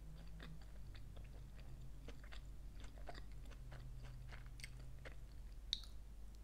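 Close-up chewing of a tortilla chip: soft, irregular crunches and mouth clicks, with one sharper click near the end, over a steady low electrical hum.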